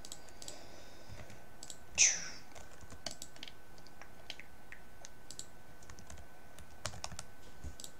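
Computer keyboard and mouse being used: scattered key presses and clicks. About two seconds in, a brief louder sound falls in pitch.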